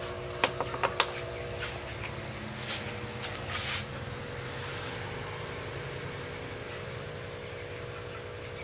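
Handling noises from a plastic bottle of fish food and its screw cap: a few sharp clicks and taps in the first second, then scuffing and rustling a couple of seconds later. A steady hum runs underneath.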